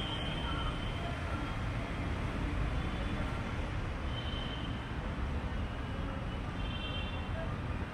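Steady rumble of busy city street traffic, with a few faint, brief high-pitched tones over it.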